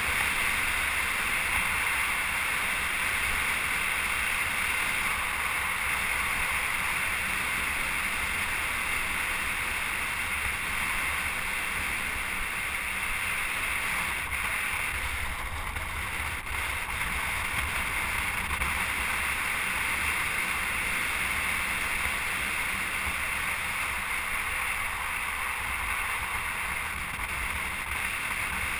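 A steady rushing noise with a low rumble: wind on the microphone and road noise while moving.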